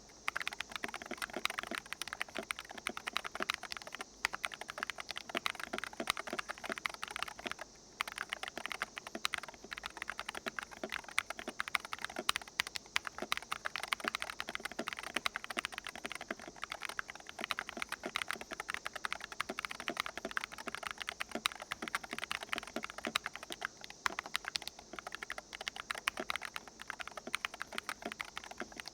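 Typing on a GK Gamakay NS68 keyboard with magnetic Hall effect switches: a rapid, continuous run of key clacks, with two short pauses in the first eight seconds or so. The keystrokes sound hollow, which the reviewer puts down to there being no foam or gaskets inside the case.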